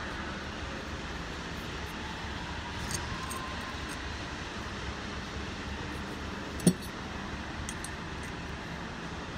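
Light metallic clinks of steel clutch plates and differential gears being handled in a Dana 80 Trac-Lok carrier, with one sharper metal clunk about two-thirds of the way through, over a steady low background noise.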